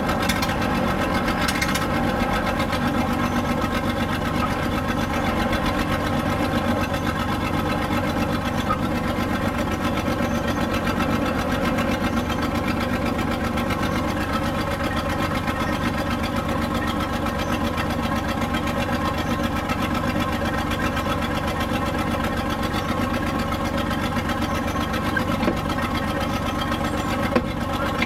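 The engine of a 1950s Schield Bantam C35 dragline crane running steadily at an even speed while the crane works its dragline bucket. There is one brief knock near the end.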